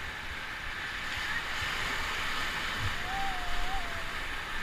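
Steady rush of river water, with wind gusting on the microphone. About three seconds in, a faint wavering tone is held for about a second.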